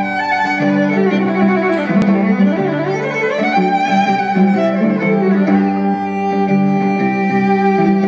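Live looped violin: several sustained bowed notes layered over a low held drone, with sliding notes rising and falling a few seconds in.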